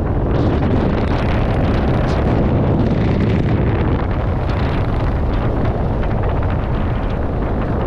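Steady wind rushing over the microphone of a skydiver's head-mounted camera while flying under an open parachute canopy.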